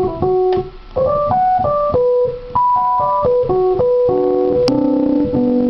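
Roland RD-300GX digital stage piano playing an electric piano (Rhodes-style) sound: a quick run of single melody notes, then held chords for the last second or two.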